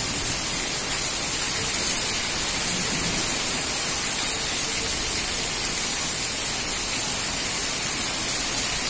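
Heavy rain pouring steadily, an even hiss with no single drops or impacts standing out.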